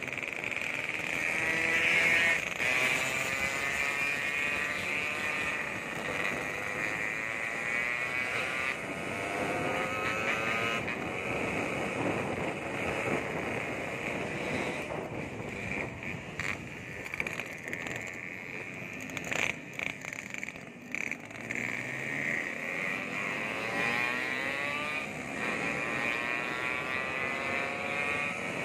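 Yamaha RX-King two-stroke single-cylinder motorcycle with a Medan-style exhaust, under way. The engine rises in pitch several times as it pulls through the gears, and the throttle is briefly shut now and then.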